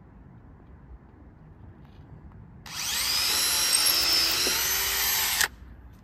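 Cordless drill driver boring a pilot hole for a coated deck screw through a 1x2 wooden slat: a whine that rises as the motor spins up nearly three seconds in, runs steadily for about three seconds, then cuts off suddenly.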